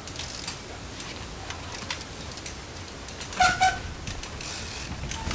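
Trials bicycle ridden over pebble paving, with scattered clicks and rattles. About three and a half seconds in come two short, loud squeaks.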